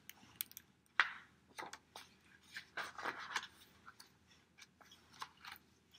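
A hardcover picture book being handled and its pages turned: scattered paper rustles and soft clicks, with one sharper knock about a second in.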